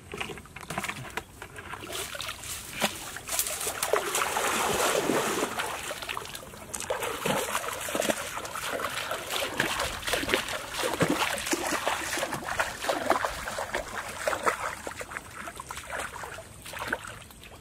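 Shallow river water splashing and sloshing around a person's legs as he wades, with many irregular splashes, loudest a few seconds in.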